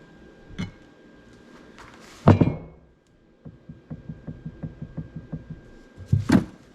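Heavy knocks of metal parts and tools, with a quick run of light ticks between them, from hand work on a differential's backlash adjusters and ring-and-pinion gears.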